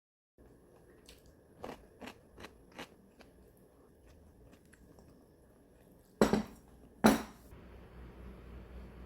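Eating sounds: a few light clicks, then two loud crunches about a second apart, like bites into crunchy food.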